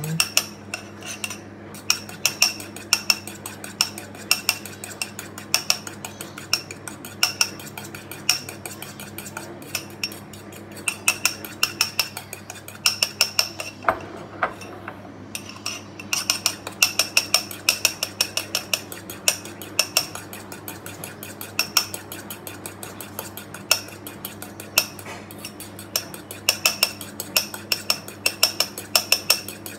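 Metal fork whisking instant coffee, sugar and water by hand in a ceramic bowl, a fast, even run of clinks and scrapes against the bowl, with a short pause about halfway through. This is dalgona coffee being whipped by hand, the mixture not yet frothing.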